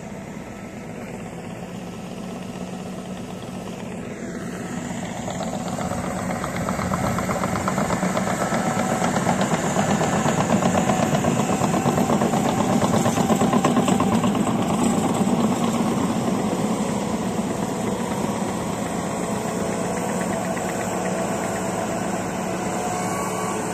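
Diesel engines of heavy earthmoving machines running close by, growing louder toward the middle, with a fast, even rattle through the middle stretch.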